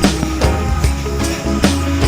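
Background music with a steady beat, bass and plucked-string melody.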